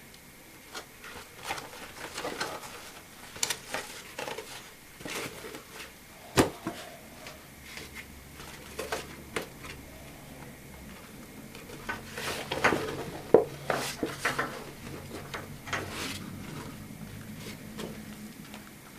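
Handling noise from a Bundeswehr flecktarn multipurpose bag being opened and searched by hand: irregular rustles and clicks of its stiff coated fabric and flaps, with a sharp knock about six seconds in and a busier stretch of handling around twelve to fourteen seconds.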